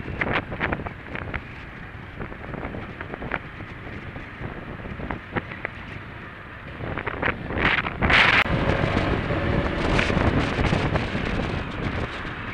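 Wind buffeting a helmet camera's microphone on a moving motorcycle, crackling, over the motorcycle's engine and road noise. The wind rush grows louder about seven seconds in.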